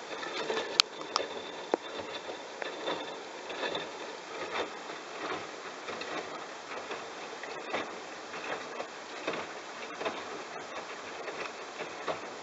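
Bosch washing machine washing towels: the drum turning with wet laundry swishing and tumbling in soft, regular surges a little over once a second, with a sharp click about a second in.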